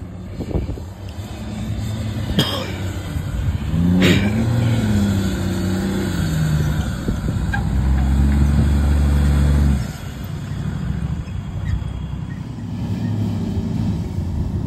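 Four-wheel-drive engines revving as they drive through soft dune sand, the pitch rising and falling. About eight seconds in, a nearby engine runs loud and low for about two seconds, then stops abruptly. There are two sharp knocks in the first four seconds.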